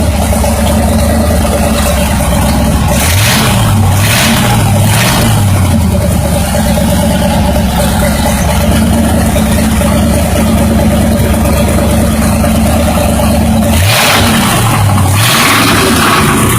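Buick 350 V8 running with a connecting rod knock from a worn rod bearing. The throttle is blipped briefly: three times near the start and twice near the end.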